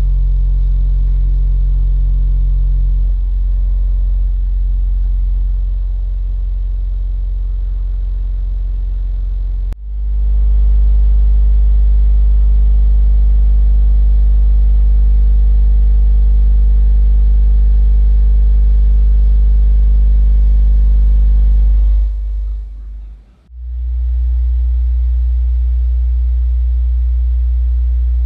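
JL Audio 10TW3 shallow-mount 10-inch car subwoofers playing steady low-bass test tones around 40 to 50 Hz at high level, for an SPL measurement of roughly 126 to 130 dB. One tone holds until about ten seconds in, a louder one follows until about 22 s, and after a brief dip another tone starts and holds.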